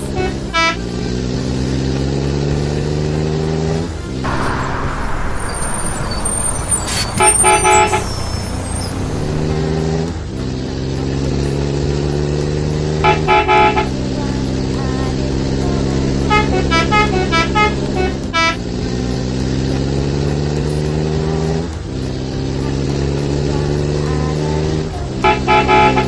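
A motor vehicle's engine revving up again and again, its pitch climbing over a few seconds each time and then dropping back. Short horn toots come several times; one, about two-thirds of the way through, is a quick run of changing notes. There is a brief hiss after the first climb.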